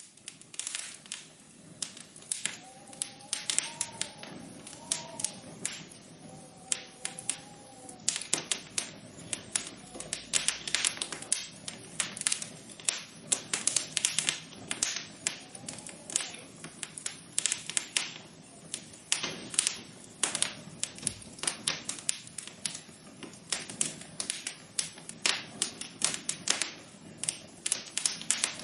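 Irregular sharp taps and clicks, several a second, over a faint steady hiss, with a few soft wavering tones in the first third.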